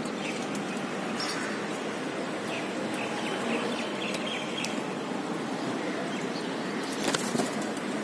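Rose-ringed parakeets' wings flapping as the flock takes off from the ledge, a loud flurry of wingbeats about seven seconds in. A few faint short chirps come before it, over a steady background hiss.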